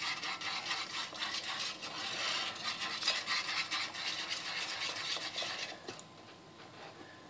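Wire whisk stirring gravy thickener into hot pan juices in a roasting pan: fast, continuous scraping and clinking of metal against the pan, which stops about six seconds in.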